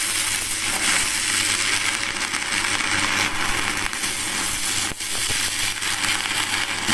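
Stick-welding arc from a Spark 400 MMA DC inverter welder burning a No. 12 electrode: a steady, dense crackle and sizzle that cuts off abruptly at the very end as the arc is broken.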